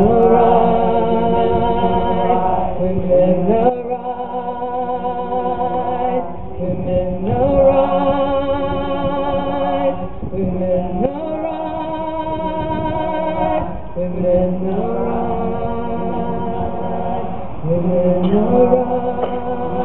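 A group of voices singing slow, long held notes, each lasting about three seconds, with slides in pitch from one note to the next.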